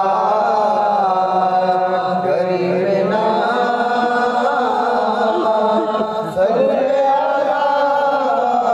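Naat sung by layered voices in a wordless interlude between lines, a wavering melody over a steady low drone.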